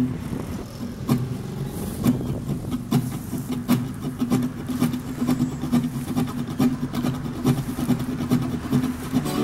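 A steady low engine hum, with regular short thumps about once a second.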